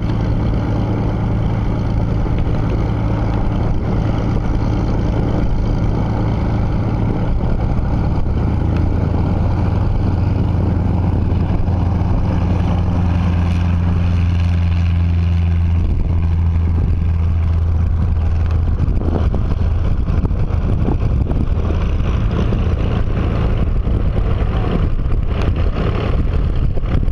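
Small Cessna trainer's single piston engine and propeller at full power on the takeoff roll: a loud, steady drone that is fullest as the plane passes, then turns rougher as it lifts off and moves away.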